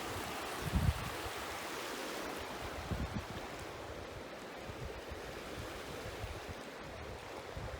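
River rapids rushing steadily, with a couple of low bumps on the microphone about a second in and again about three seconds in.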